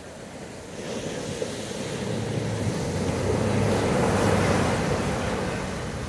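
Ocean surf breaking on a sandy beach and against shoreline rocks: a rush of noise that builds from about a second in, peaks past the middle and eases off near the end.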